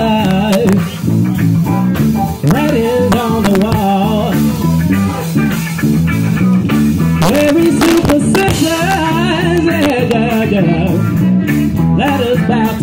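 Live band playing: a saxophone melody over electric guitar, electric bass and drum kit, loud and continuous.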